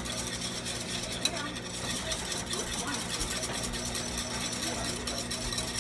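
Ewave microwave oven running as it heats mashed potatoes: a steady, even electrical hum, with faint voices in the background.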